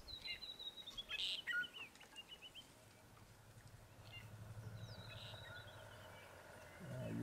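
A bird calling twice, each call a quick run of short high notes stepping down in pitch: one at the start, the other about five seconds in. A brief crackle comes just after the first call, and a low steady hum sets in about halfway through.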